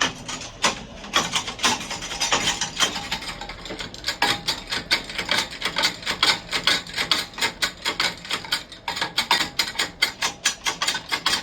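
Rapid, uneven metallic clicking and knocking from hand tools at work on a BMW 7 Series' suspension arm as new bushed arms are fitted, several strikes a second.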